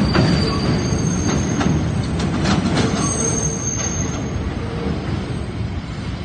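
R68 subway train pulling away over the switches, wheels clacking irregularly over the rail joints with thin high squeals, mostly in the first few seconds. It grows slowly fainter as it recedes.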